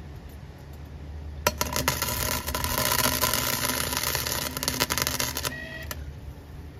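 Flux-core wire-feed welder arc crackling steadily for about four seconds, starting about a second and a half in and cutting off abruptly when the trigger is released.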